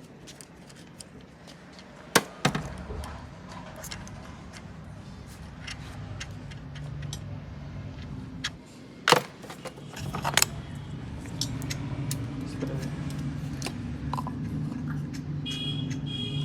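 Metal tools and parts clinking and being handled, with a few sharp knocks. About two-thirds of the way through, a low steady hum comes in.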